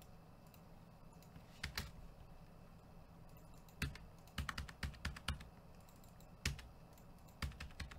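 Computer keyboard being typed on: irregular short runs of key clicks, the busiest about halfway through.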